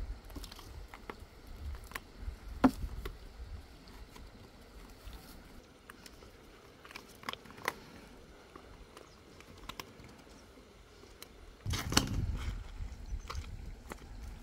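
Scattered knocks, scrapes and rustles of a large corrugated plastic suction hose being handled, coiled and tied on stony ground, with a sharper knock about three seconds in and a louder stretch of handling noise about twelve seconds in.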